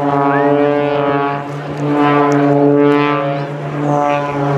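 The propeller engine of an Extra 300 aerobatic plane running at steady high power in a dive, a loud, steady droning tone. The drone dips in loudness twice, briefly.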